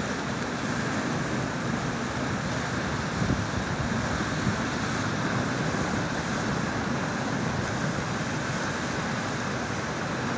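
Rushing, foaming river water over rapids, a steady even rush.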